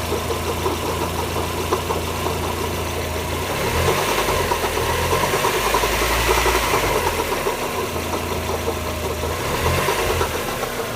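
1994 Mazda Miata's 1.8-litre four-cylinder engine running with a lifter tick and a knocking noise. It idles, revs up about four seconds in, holds there, and drops back to idle near the end. The owner says the knock gets louder, and pulling the spark plug wires one at a time did not isolate it.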